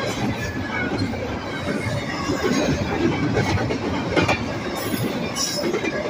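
Intermodal freight train's cars rolling past: a steady rumble and clatter of steel wheels on rail, with a few sharper knocks, the loudest about four seconds in.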